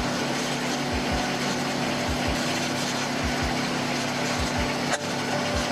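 Yanmar 324 compact tractor's diesel engine running steadily, with a low double pulse about once a second. A single short click near the end.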